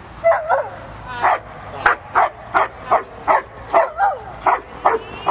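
A dog barking in a rapid, even string, about two to three barks a second, with a couple of drawn-out yelping barks that bend up and down in pitch.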